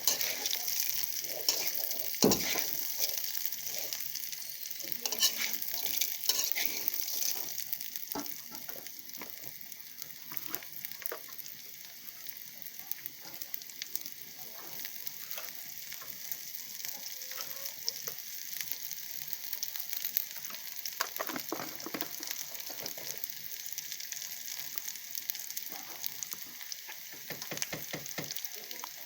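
Food sizzling in hot oil in a pan while being stirred, with scattered clicks and scrapes of the spatula. The sizzle is louder for the first several seconds, then settles to a steadier, lower level.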